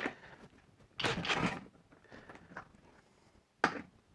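Light handling noise: a click at the start, a short rustling scrape about a second in, and a sharp knock near the end.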